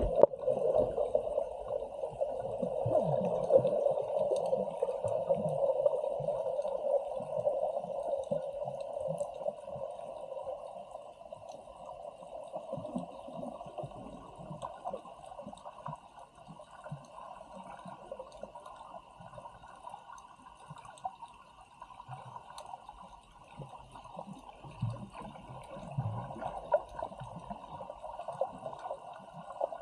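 Muffled water sloshing and gurgling, louder in the first several seconds and then softer, with a faint steady hum behind it.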